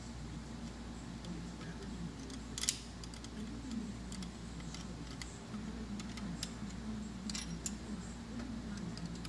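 Open-end wrenches clicking against the bolt and nut of a catch can's metal mounting clamp as it is tightened: a few small metallic clicks, the sharpest about two and a half seconds in, over a low steady hum.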